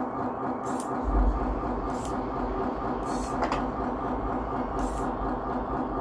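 Simulated diesel engine running from the scale RC CAT 140H grader's sound unit: a steady engine drone, with a deeper rumble coming in about a second in and short hisses every second or so.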